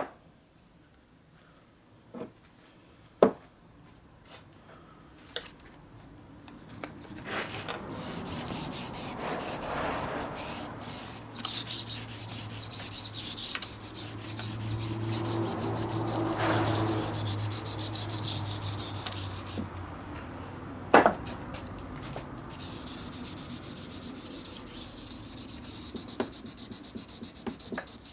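Rust being scrubbed off metal parts of an old benchtop mini lathe with an abrasive: a long, scratchy rubbing and scraping that builds after a few light clicks. A low hum runs under it through the middle, and there is a sharp knock about two-thirds of the way through.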